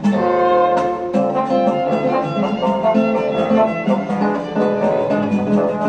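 Live chamber ensemble playing, a violin carrying the melody over bowed strings, with a quick, steady pulse of short attacks underneath.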